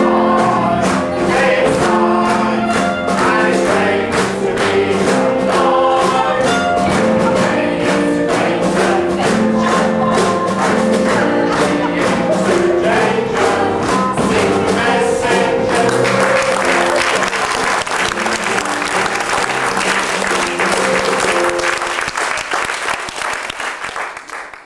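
Music with held notes and a steady beat, with audience applause joining in about two-thirds of the way through; everything fades out at the end.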